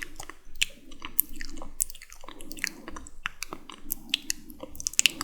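Close-miked wet mouth sounds: sticky lip smacks and tongue clicks, irregular and sharp, coming several a second.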